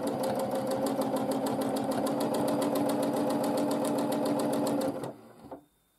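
Domestic sewing machine stitching in free-motion quilting, the needle ticking in a quick even rhythm over a steady motor hum; it stops about five seconds in.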